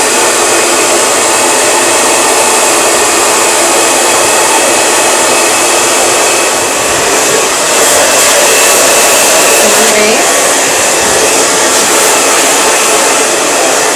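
Salon blow dryer running steadily at high power, blowing air loudly while a section of long hair is dried over a round brush. Its loudness dips slightly about halfway through, then picks back up.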